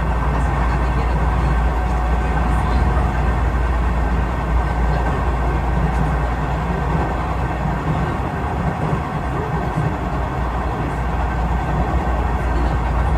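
Steady running rumble of a Nishitetsu limited express train, heard from inside the passenger car while it travels along the line.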